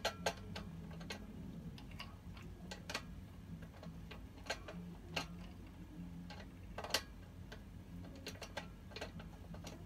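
Irregular light clicks and taps from hands fitting bolts into a steel desk frame, the sharpest about seven seconds in. A low steady hum runs underneath.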